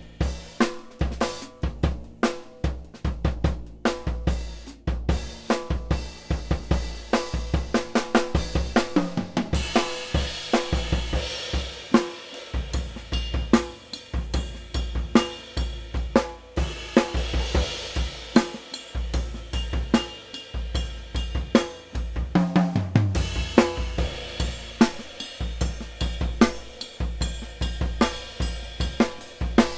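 Acoustic drum kit played in a steady groove: kick drum, snare, hi-hat and cymbals, heard through overhead microphones.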